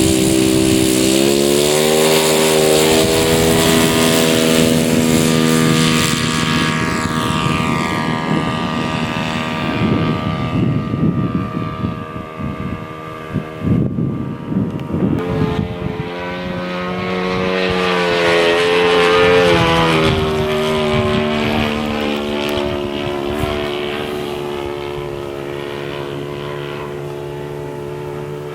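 Radio-controlled Top Flite Cessna 182 scale model airplane's engine and propeller running as a steady pitched drone. The pitch climbs in the first couple of seconds, the sound grows rougher and fainter in the middle, swells with a sliding pitch as the plane passes by around three-quarters of the way through, then trails off.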